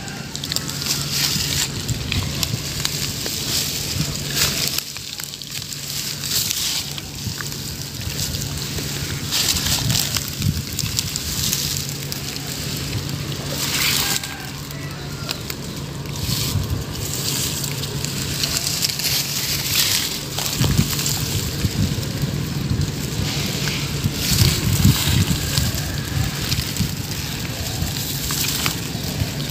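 Dry straw and grass rustling and crackling as it is poked and trampled while hunting a crab, in a run of short crunchy bursts, with a steady low hum underneath.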